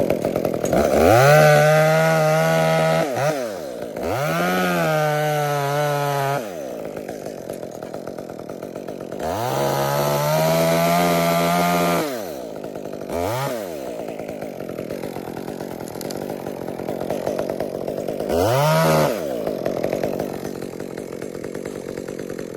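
Gas chainsaw revved to full throttle in about five bursts, each held a second or two and falling back to idle between; the longer ones come early and around ten seconds in, a short one near the end.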